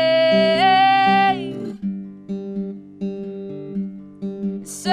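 Acoustic guitar playing a repeating strummed pattern under a song; a sung note is held for the first second and a half, the guitar carries on alone, and singing starts again right at the end.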